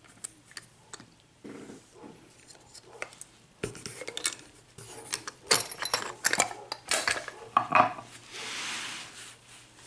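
Small metal clicks and clinks of a half euro lock cylinder and its picking tools being handled after the lock has been picked open, with a soft rubbing hiss for about a second near the end.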